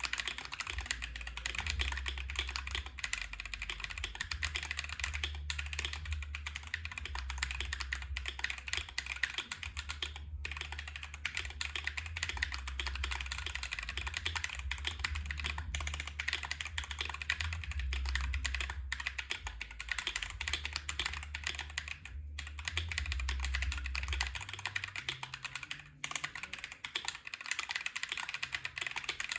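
Continuous fast typing on a KBD67 Lite aluminium-cased mechanical keyboard with unlubed Neapolitan Ice Cream switches on an FR4 plate and GMK Laser keycaps: a dense stream of key clacks and bottom-outs. A low hum lies under it and stops about 24 seconds in.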